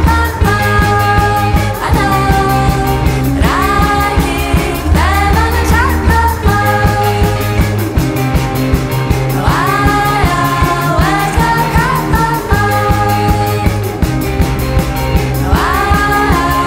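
Background song with a steady beat and a sustained bass line. Pitched notes, likely a singing voice, swoop up into long held tones every few seconds.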